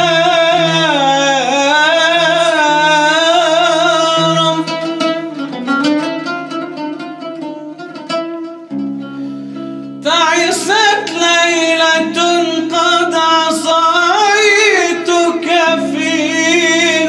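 Male solo singer drawing out a long melismatic, wavering line of an Arabic nasheed over a steady low drone. Around the middle the voice drops back for a few seconds of quick repeated notes, then returns about ten seconds in over a held low chord.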